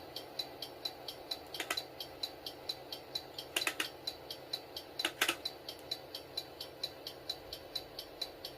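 Model automatic level-crossing warning bell ringing in a fast, even tick at about three and a half dings a second, over the steady hum of a running HO-gauge model train. A few louder clicks and clatters come about two seconds in and again around the middle.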